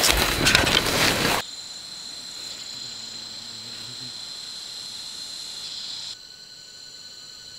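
Footsteps crunching and rustling through grass and leaves for about the first second and a half, then steady high-pitched insect chirring, crickets or cicadas, which drops a little in level near the end.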